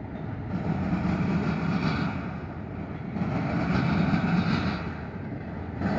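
Freight train of autorack cars rolling past: a steady rumble and rattle of steel wheels on rail, swelling and easing every few seconds.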